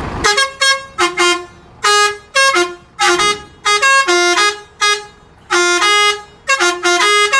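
Telolet horn on a Mahkota bus played as a melody: about a dozen short toots in quick groups, each a chord of several tones, the pitch stepping up and down from note to note.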